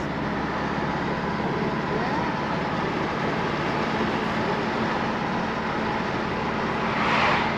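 Steady road and engine noise inside a moving motorhome's cabin, with a constant low hum and a brief louder hiss about seven seconds in.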